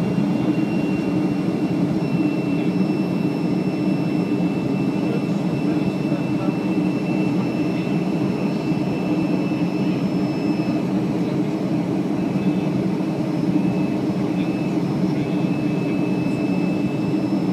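Boeing 737-500's CFM56 turbofan engines running at climb power, heard from inside the passenger cabin: a steady, even rumble with a thin high whine held above it.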